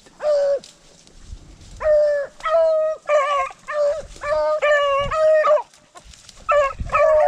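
Beagles baying on the rabbit's track: a run of short, even-pitched bays, one near the start, a steady string through the middle, a brief pause, then more near the end.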